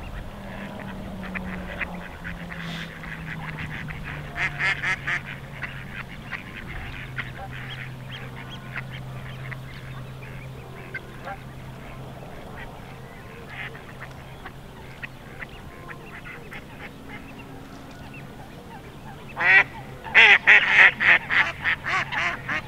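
Waterfowl calling on the reservoir: a few calls about four seconds in, then a loud, rapid run of calls near the end.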